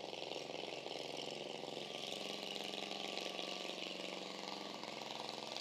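Construction machinery engine running steadily at an even pitch, with a hiss of higher noise over it.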